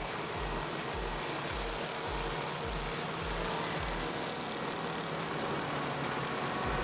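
Wood chipper running with a steady loud din, with a deep thumping about three times a second that stops about four seconds in and comes back near the end.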